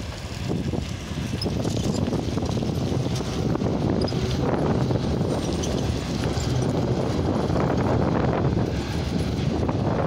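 Freight train of empty coal wagons rolling past: a steady rumble with rapid wheel knocks, growing a little louder about two seconds in.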